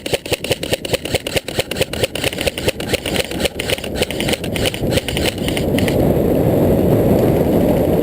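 Airsoft rifle firing on full auto close by: a long string of rapid, even shots for nearly six seconds. A steady rushing noise follows.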